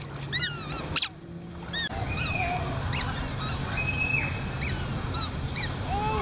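Repeated short, high squeaky chirps from an animal, several a second, over a steady background noise that grows louder about two seconds in.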